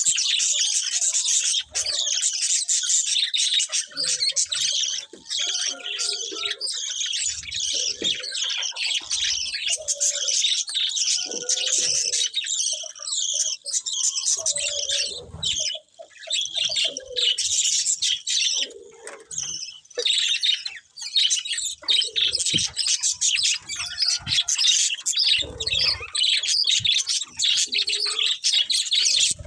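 Several budgerigars chirping and chattering without a break, a dense high twittering, with a few short dull bumps here and there.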